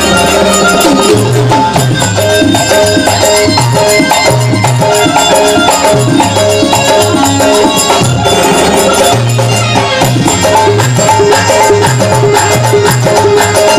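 Instrumental interlude of a live Rajasthani folk bhajan: a melody of held notes over a pulsing bass line, with busy jingling and shaking hand percussion keeping a steady beat.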